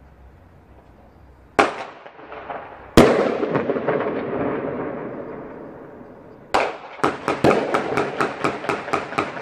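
Firecracker bangs: a sharp bang, then a louder one about three seconds in that echoes away over a couple of seconds, and another bang. Then comes a rapid string of about a dozen cracks, roughly five a second.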